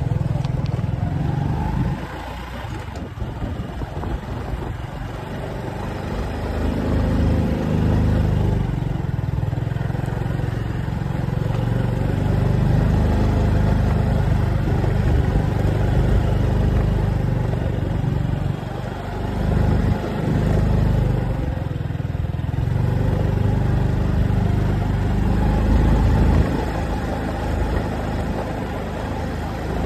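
A road vehicle's engine running with a continuous low rumble that grows louder and softer in turns.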